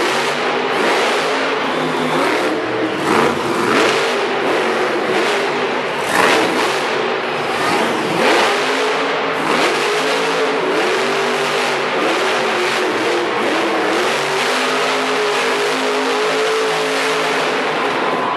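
Monster truck engine running hard, its pitch rising and falling again and again as the throttle is worked, with a few sharper loud surges.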